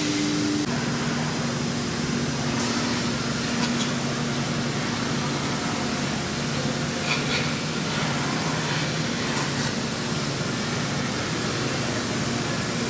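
Three-axis CNC machining center running as it mills a foam pattern: a steady hum from the spindle and drives over a constant hiss. The hum's pitch drops a little about half a second in, and a few faint ticks come through.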